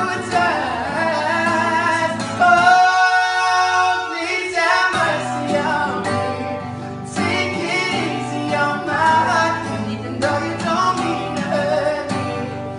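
Acoustic guitar strummed under a high male voice singing, with one long held note about three seconds in.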